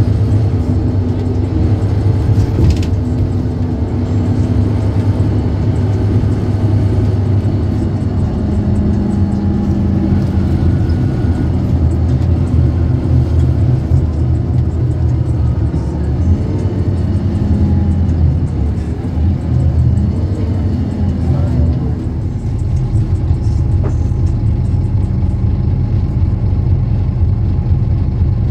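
Scania K230UB city bus's diesel engine running under way, a steady low drone. About two-thirds of the way through, the engine note rises and falls several times, then settles into a lower, steadier hum.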